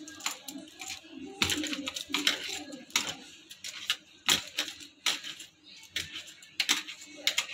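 Bangles on the wrists clinking and hands knocking on a marble counter while rolling maida dough into a rope by hand: a run of sharp, irregular clicks.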